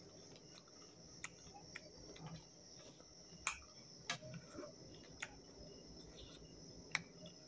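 Close-up eating sounds from someone eating by hand: scattered sharp mouth clicks and smacks while chewing, with fingers working food on a metal plate, over a faint steady high-pitched whine.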